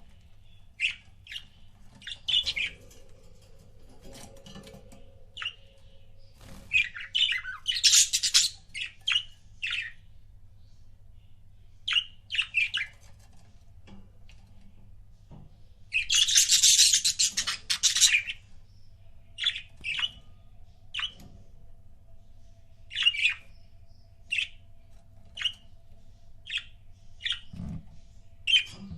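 Pet budgerigars giving short chirps every second or so, with two longer, louder bursts of calling: one about seven seconds in and the loudest about sixteen seconds in, lasting around two seconds each.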